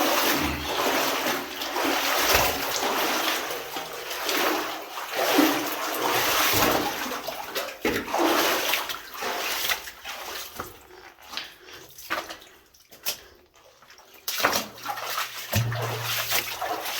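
Water splashing and sloshing around a person's legs as they wade through a flooded mine passage, in irregular bursts that ease off for a few seconds past the middle and then pick up again.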